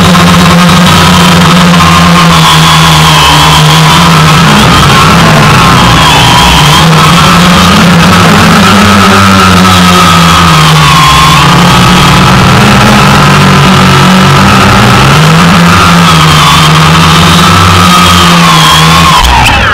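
DJI Phantom quadcopter's motors and propellers whining loudly, heard up close from the camera on the drone. The pitch wanders up and down as the throttle changes during the descent. Just before the end it touches down in the grass and the whine shifts in pitch and drops.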